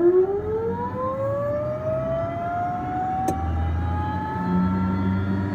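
Plane engine sound effect: a whine that climbs steadily in pitch and levels off, over a low rumble, as an engine spooling up. A faint click about three seconds in.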